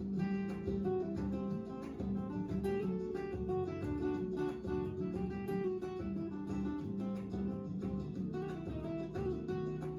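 Background music played on guitar: a continuous run of plucked and strummed notes.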